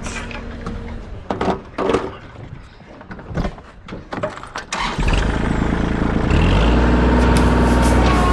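A few knocks and clatters, then about five seconds in a tractor's diesel engine starts up loudly and is throttled up a second later to a steady higher run, ready to dig with the loader bucket.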